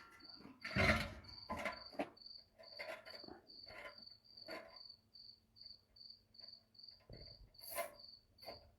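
A cricket chirping steadily, about three high chirps a second, over a series of knocks and bumps from milk containers being handled and loaded, the loudest about a second in.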